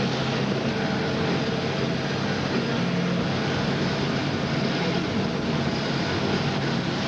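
Steady engine hum and tyre noise of a red truck driving on a wet road, heard from inside the cab.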